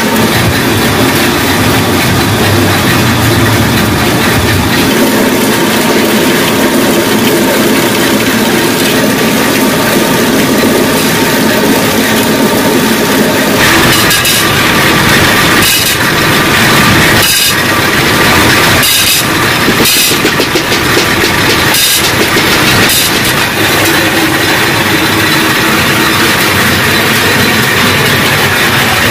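Pillar drill press running loud and steady with a rattling mechanical noise as it drills holes in a stainless steel ring. About 14 s in the noise changes, and a string of sharp metallic knocks follows over the next ten seconds.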